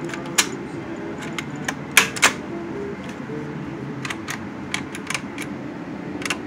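Mechanical clicks and clacks of a 1970 Sony TC-20 car cassette player as a cassette is pushed home into its slot, described as an incredibly satisfying load sound, then more scattered clicks as its piano-key tape-direction buttons are handled. The loudest two clacks come about two seconds in.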